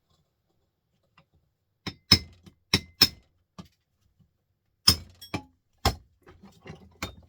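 Sharp metallic clinks and knocks, about nine of them at irregular intervals starting about two seconds in, as a small printer motor is taken apart for its copper and brass.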